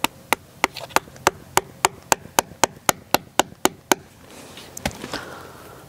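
Mallet hammering a metal garden staple into a tree trunk: a quick, even run of about fourteen sharp taps, three to four a second, that stops about four seconds in, then one more tap about a second later.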